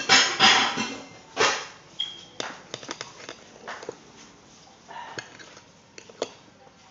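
Metal fork knocking and scraping on a ceramic plate while cutting rice cakes: a loud clatter in the first second and a half, then scattered light clinks, one of them ringing briefly.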